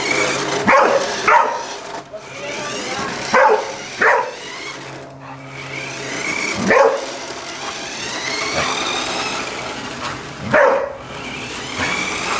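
Young golden retriever barking, about six sharp barks at uneven intervals, two close pairs in the first few seconds.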